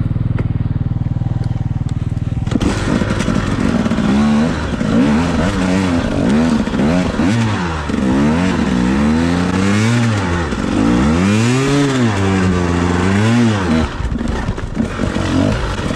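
Enduro dirt bike engine, heard from the rider's seat, running low and steady at first, then from about two and a half seconds revving up and down over and over, roughly once a second. The rider is working the throttle and a manual clutch to pick his way up a rocky climb.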